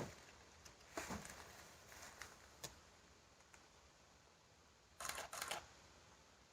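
Camera shutter firing: a few single clicks, then a quick burst of several shots about five seconds in.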